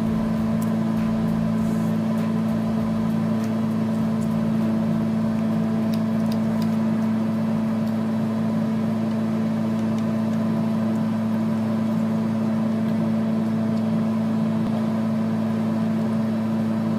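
Steady machine hum with a constant low drone.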